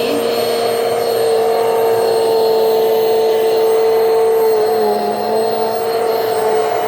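Hoover High Performance Swivel XL Pet upright vacuum running steadily, its motor whine holding one pitch and dipping slightly about five seconds in.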